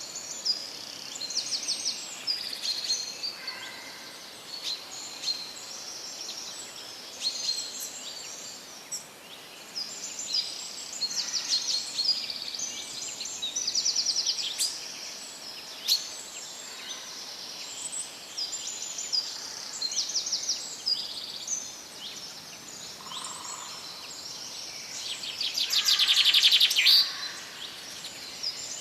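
Several birds chirping and singing over one another, with a louder, rapid trill near the end.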